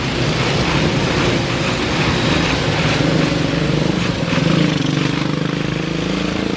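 Road vehicles driving through flood water, their engines running in a steady drone, with one engine's pitch rising slowly in the second half.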